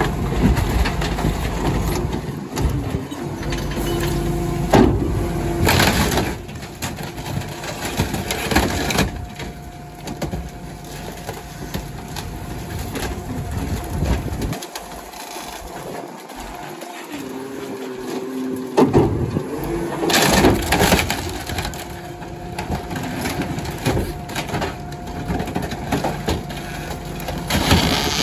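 Rear-loader garbage truck's compactor crushing a wooden cabinet in the hopper: wood cracking and splintering with several loud knocks over the truck's running engine and hydraulics, quieter for a few seconds in the middle.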